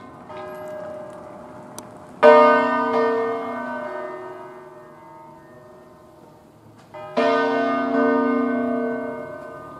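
Large bronze church bell swinging full circle in its tower, its clapper striking twice about five seconds apart, each stroke ringing out and slowly dying away. A higher-pitched bell strikes faintly just at the start.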